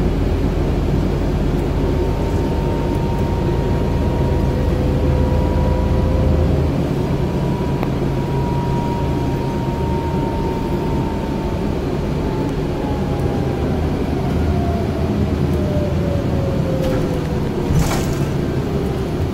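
Cabin noise of a Scania Citywide city bus on the move: steady engine and road rumble, with a thin whine that holds and then falls in pitch over the last few seconds. A single sharp knock comes near the end.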